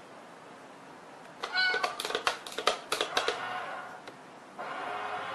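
A brief meow among a quick run of sharp clattering taps as a cat paws at a toy kitty coin bank, then about four and a half seconds in a steady whirring hum starts up suddenly.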